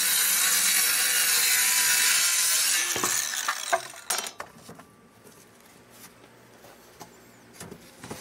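Ryobi circular saw cutting along the edge of a wooden board, a loud, steady blade noise that stops about three seconds in as the saw runs down. This is followed by a few sharp wooden knocks.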